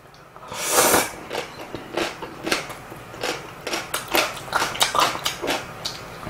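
Close-up eating sounds of a person eating instant ramen noodles: wet chewing and many short mouth clicks, with light chopstick taps. A brief hissing burst comes about a second in.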